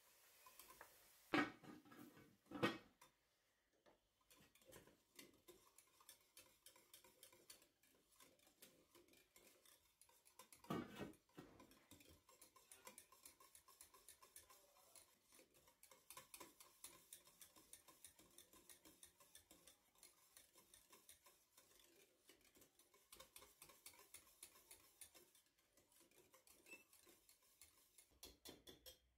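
Wire whisk beating a thick white sauce in a stainless steel saucepan, its wires ticking faintly and rapidly against the pan. A few louder knocks of cookware come near the start and about eleven seconds in.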